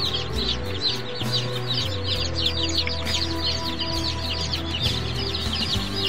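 Newly hatched Cheonggye chicks peeping nonstop among hatching eggs in an incubator: a dense chorus of short, high cheeps overlapping several times a second.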